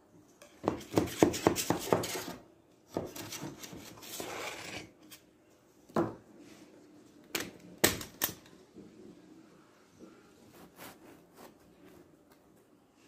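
A knife scraping and clicking against a metal springform cake pan as the cake is loosened from it: a quick run of clicks and scrapes, then a longer scraping rustle, then a few sharp single clicks about six to eight seconds in.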